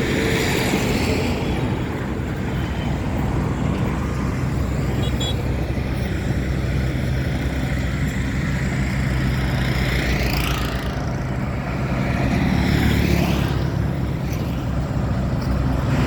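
Road traffic: a steady low engine rumble of motor vehicles, with two vehicles passing close by in quick succession about two-thirds of the way through.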